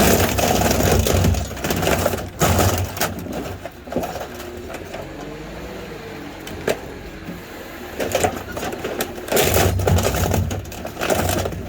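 Wheel loader working at the old washing machine: its engine running, with crunching and scraping of sheet metal in loud, clattering stretches at the start and again from about eight seconds in. In between it goes quieter while the engine's pitch wavers up and down.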